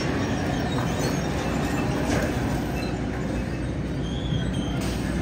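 Steady airport ramp noise from running machinery beside a parked airliner: an even low rumble with a hiss over it, without changes in pitch.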